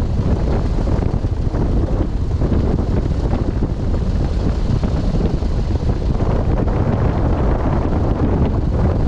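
Piper Pawnee tow plane's piston engine running steadily, with wind buffeting the microphone.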